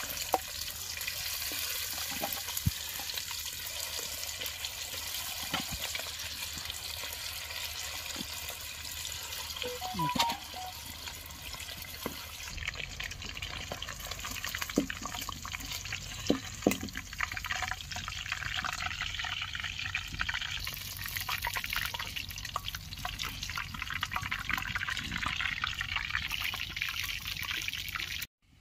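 Marinated chicken lollipops deep-frying in hot oil: a steady sizzle with many small crackles and pops.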